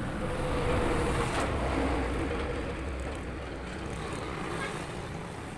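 A road vehicle's engine passing on the street: a steady hum that swells about a second in, then fades.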